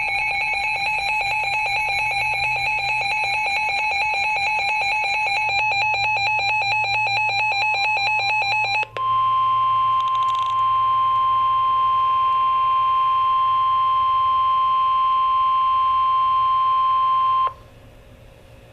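Emergency Alert System warning tones: a rapidly pulsing electronic alarm for about nine seconds, then, after a brief break, one steady high tone for about eight seconds. The steady tone is the weather radio warning alarm tone that comes before a severe weather warning. It cuts off a second or so before the end, leaving a faint hum.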